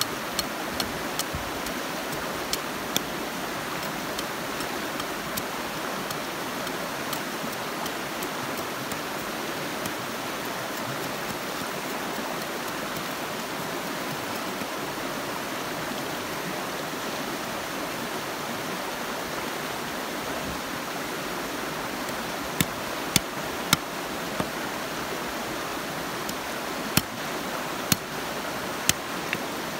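Large knife chopping at an upright bamboo stick: sharp knocking strikes, a few in the first three seconds and a quicker run of about seven near the end, over a steady rushing background.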